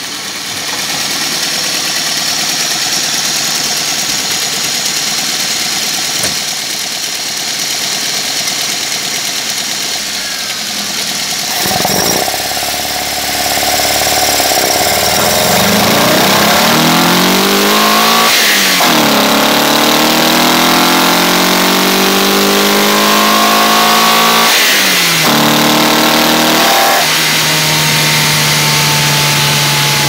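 Car engine breathing through an unfiltered Weber 40 IDF twin-choke carburettor, heard at the open intake. It idles steadily for about ten seconds, is blipped once, then is revved up and let fall a few times, the pitch climbing and dropping.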